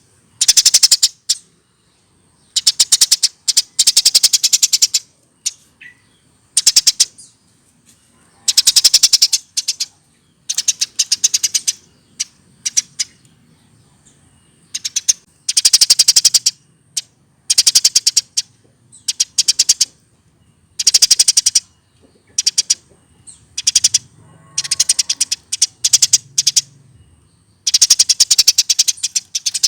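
Eurasian tree sparrow chirping in rapid bursts of high, chattering notes, each burst about a second long, repeated every second or two with short pauses between.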